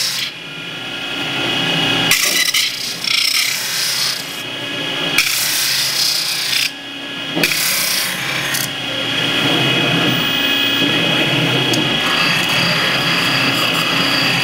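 CNC metal-spinning lathe at work, its roller tool pressing against a spinning sheet-metal blank: a continuous rubbing noise with a few steady high tones. The level drops briefly near the start and again about seven seconds in.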